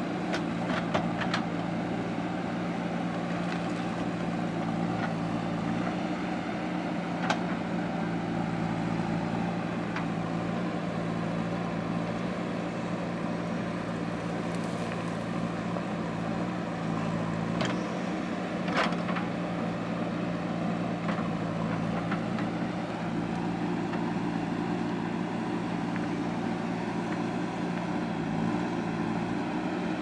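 JCB 3DX Super backhoe loader's diesel engine running steadily while the backhoe arm digs and swings, with a few sharp knocks from the digging, the loudest about seven and nineteen seconds in.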